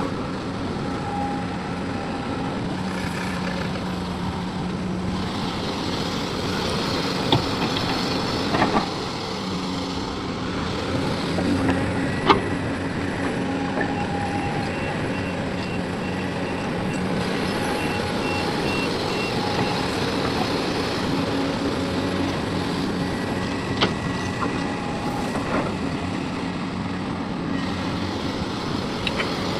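Heavy diesel machinery, an excavator and a dump truck, running steadily, with a few sharp clanks along the way. Around the middle, a run of short, high beeps like a reversing alarm sounds for about four seconds.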